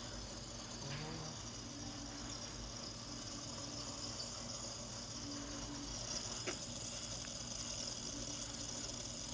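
A steady high hiss that gets louder about six seconds in, with a single faint click shortly after.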